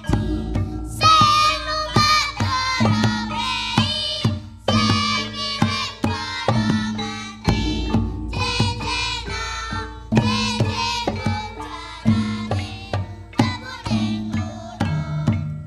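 Javanese gamelan (karawitan) ensemble playing jaranan music: hand-drum strokes and struck metal notes under a wavering sung melody.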